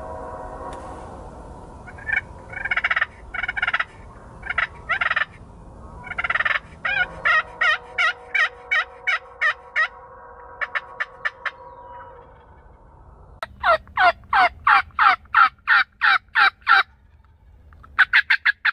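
Turkey hen yelps scratched out on a pot-and-peg friction call, in runs of quick evenly spaced notes. The loudest run, about a dozen notes, comes near the end. In the first half a tom turkey answers with gobbles.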